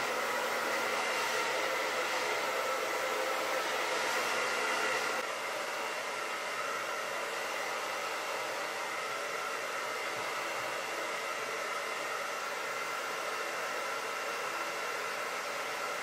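Handheld hair dryer blowing steadily on a wig cap at the hairline, a constant rush of air with a faint motor whine; it drops a little in level about five seconds in.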